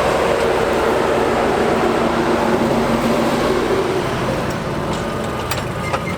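Fendt 936 tractor's diesel engine working steadily under load while pulling an eight-furrow Lemken plough, easing off a little toward the end, with a few sharp clinks near the end.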